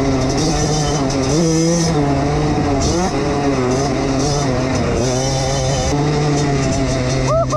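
Koshine XN 105 pit bike's small single-cylinder engine running under way, its pitch dipping and rising a few times as the throttle changes, with wind noise on the microphone.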